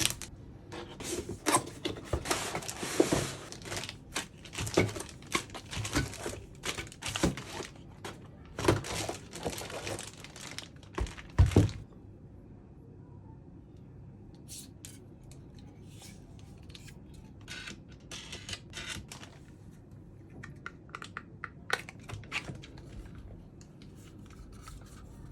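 Packaging rustling and crinkling, with knocks and clicks of PC parts being handled during assembly. It is busy for about the first twelve seconds, then only scattered clicks.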